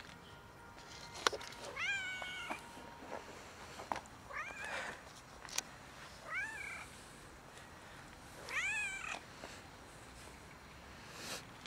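Tabby-and-white cat meowing four times, each call rising and then falling in pitch, a couple of seconds apart. A few short sharp clicks fall between the calls.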